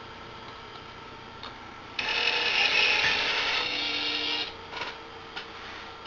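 Homemade azimuth-elevation antenna rotor's geared pan-tilt motors running, a mechanical whir that starts suddenly about two seconds in and stops after about two and a half seconds as the rotor turns to a newly sent position. A few small clicks follow.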